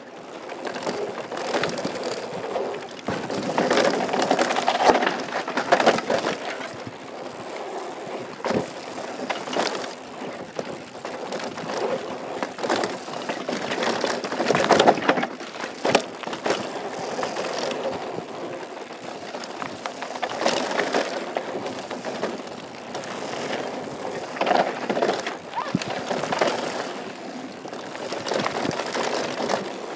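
Mountain bike riding down a dirt trail: tyres crunching over dirt and gravel, with uneven clatter and sharp knocks from the chain and frame over bumps.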